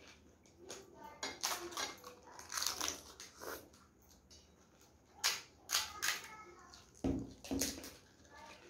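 Crisp, hollow fried puri shells cracking and crunching as they are poked open with fingers and bitten, with chewing, in a quick run of sharp crackles. Two dull thumps come near the end.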